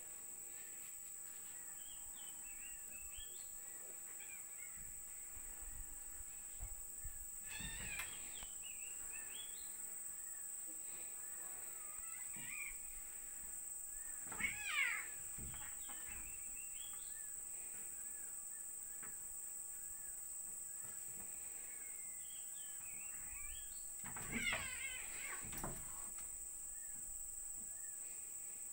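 A cat meowing briefly three times, the loudest about halfway through, while two cats play-fight. Under it runs a steady high-pitched insect buzz with faint chirps.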